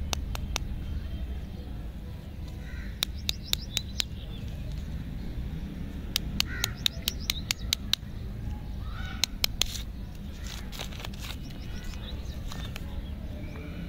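Lollipop wrappers crinkling and crackling as they are peeled off by hand, in several short spells of sharp crackles. Birds chirp a few times in the background over a low steady rumble.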